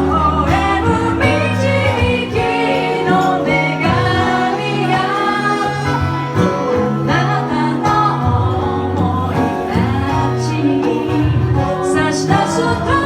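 A live pop song performed by a band with a singer, the voice riding over sustained instrumental chords.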